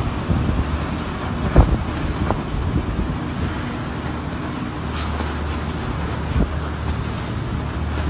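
Storm wind blowing hard across the phone's microphone: a steady rushing noise with heavy low buffeting. A sharp knock about a second and a half in, and a few lighter ones later.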